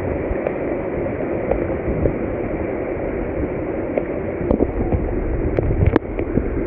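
Steady rush of water falling and running at a waterfall, a dense even noise weighted low, with a few faint clicks over it.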